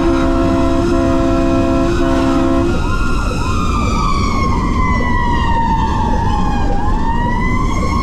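A fire engine's air horns blare a steady chord for the first few seconds. Then the siren takes over, its wail sliding slowly down in pitch and rising again near the end, with a faster yelping siren sweeping underneath.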